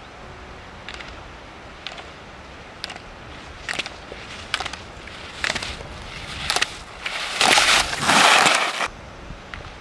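Slalom skier's skis on hard snow: short clacks about once a second with each turn, then, about seven seconds in, a loud two-second scraping hiss as the skis carve past close by.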